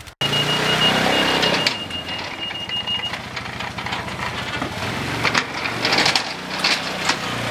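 Linhai Dragon Fly 400 4x4 ATV engine running as the quad pushes a snow plow blade, with a thin steady high whistle over the first three seconds and a run of clicks and rattles from about five seconds in.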